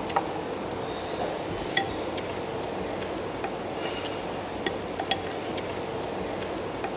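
Chopsticks and a spoon clinking and tapping against a porcelain bowl of noodle soup: scattered light clinks, some briefly ringing, the sharpest about two seconds in, over a steady background hum.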